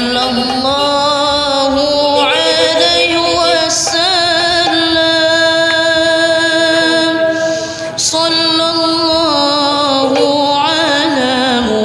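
Music: a sung Islamic devotional song (sholawat) in Arabic, the melody carried in long held notes that waver and glide from one pitch to the next.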